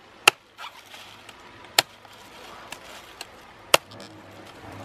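Cleaver chopping into the top of a young green coconut to open it: three sharp strikes about a second and a half to two seconds apart, with a couple of lighter taps between the last two.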